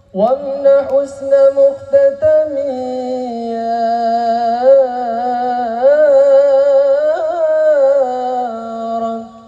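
A solo male voice singing a long, ornamented sholawat phrase without drums, as in the vocal opening of an al-Banjari performance. The held notes waver and bend, and the phrase fades away near the end.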